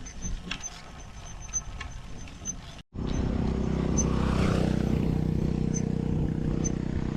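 A road bike making faint, irregular high-pitched ticks as it climbs, a noise from the bike whose cause the rider doesn't know. From about three seconds in, a motor vehicle's engine runs steadily and is the loudest sound, with the ticks still coming through.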